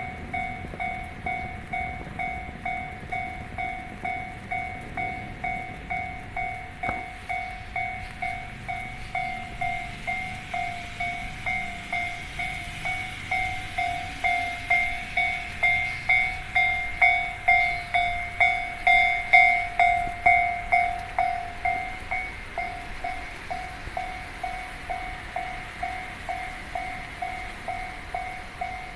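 Japanese railway level crossing warning bell ringing, an even repeated ding about one and a half times a second. A train passes through the crossing, its running noise rising and fading in the middle.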